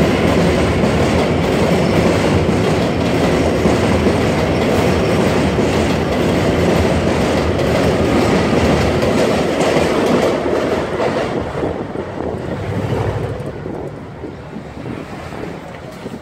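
Elevated subway train passing over the steel el structure overhead, loud for about ten seconds and then dying away.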